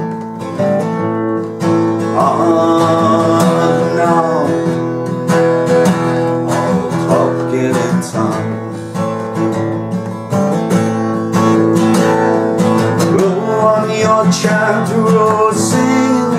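Steel-string acoustic guitar strummed in steady chords, a break in the song between a verse and the chorus.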